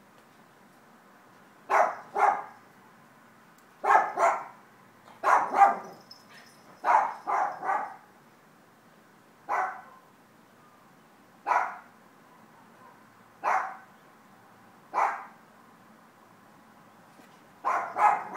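A dog barking in groups of one to three short barks, with pauses of one to two seconds between groups; single barks in the middle, doubles near the end.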